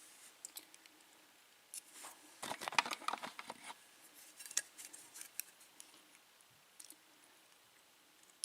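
Small metal clicks and rattles of lock pins, springs and tools being handled as a Dexter pin-tumbler lock is taken apart, pin stack by pin stack. A dense flurry of clicks comes about two to four seconds in, then scattered ticks and one sharp click at the end.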